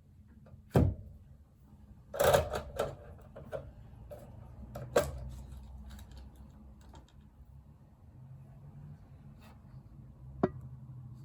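Small tools and plug parts being handled on a workbench during soldering: a handful of sharp clicks and knocks, loudest about a second in, a quick cluster around two seconds, another about five seconds in and one near the end, over a faint low hum.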